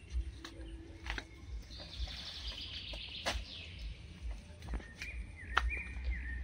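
Birds chirping and trilling, with a series of sharp snaps and rustles as banana leaves are cut and handled.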